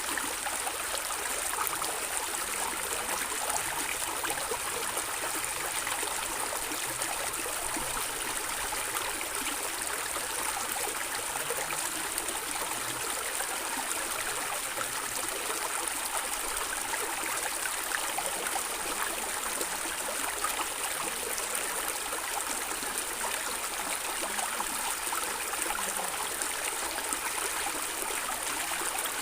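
A shallow stream of water running and gurgling steadily over stones.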